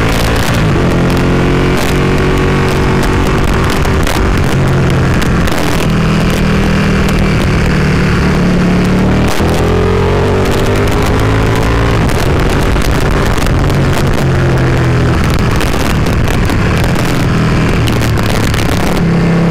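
Motorcycle engine running at riding speed, its revs rising and falling with gear changes, under heavy wind rush on the microphone.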